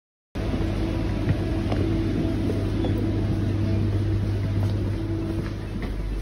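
Steady rumble and hum inside a train carriage as the train runs, with a few light clicks.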